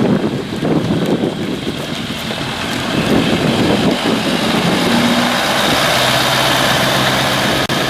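A heavy vehicle's engine running steadily at close range, with a faint low hum that settles in during the second half.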